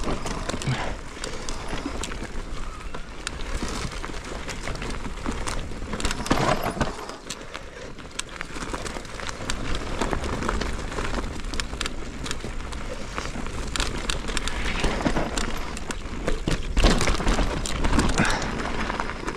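Mountain bike ridden fast down a dirt trail: tyres rolling over dirt and roots, with the bike rattling and clattering over the bumps and a few harder knocks, about six and seventeen seconds in. Wind rumbles on the bike-mounted microphone.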